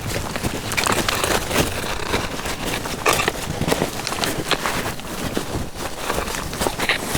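A hiker's footsteps on a trail, a steady walking pace of about two steps a second.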